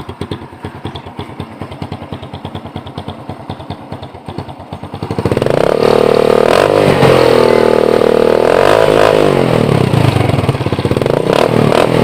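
Small motorcycle engine through an open, straight-through tube exhaust ('kalkal pipe') with an enlarged tip. It idles with a fast, even popping, then about five seconds in it is revved hard and held high, the pitch dipping and rising again, before easing off near the end.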